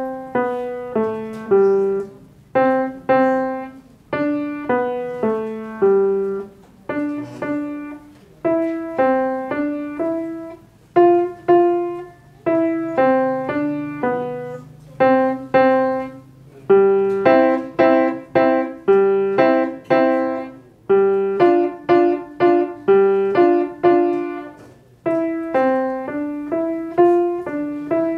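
Grand piano played solo: a melody with accompaniment in phrases of separate notes, each note fading after it is struck, with brief pauses between phrases.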